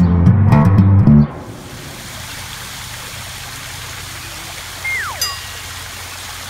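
Music with a bass guitar line cuts off about a second in, giving way to a steady rush of water pouring down a fountain cascade. Around five seconds in a short whistle falls steeply in pitch.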